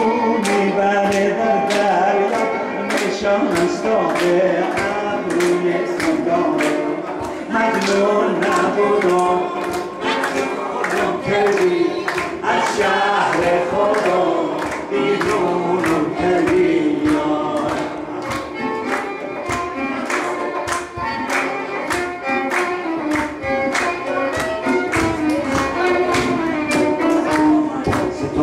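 Live singing with violin accompaniment and several voices joining in, while an audience claps along in a steady rhythm of about two claps a second.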